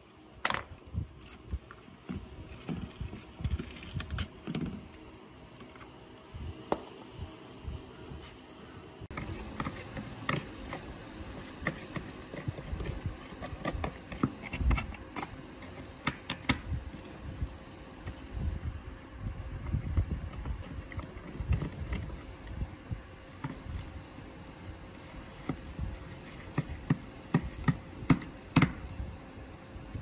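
A screwdriver and fingers working on a sand-encrusted plastic RC boat hull: scattered clicks, taps and gritty scraping, with a busy run of sharper clicks near the end.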